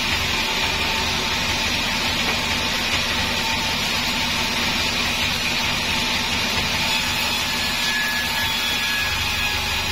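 Sawmill band saw running steadily as its blade rips lengthwise through a slab of reddish wood, with a continuous even noise and a low hum.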